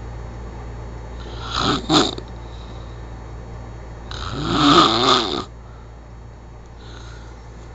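A person snoring loudly in sleep, one snore every few seconds: a short double snore about two seconds in, then a longer, louder one from about four to five and a half seconds in.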